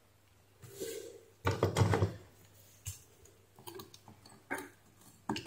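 A fine metal tool picking and scraping at a rusted, broken-off screw in a steam iron's base, in a few short clicks and scrapes; the screw head has snapped from corrosion.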